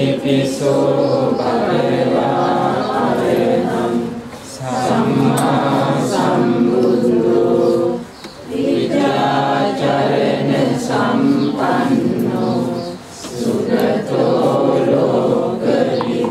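A group of voices chanting a Buddhist devotional chant in unison, in long held phrases of about four seconds with brief breaks between them.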